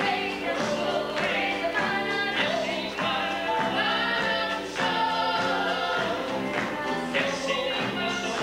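A live gospel band plays a song, with voices singing in harmony over drums, electric bass and piano.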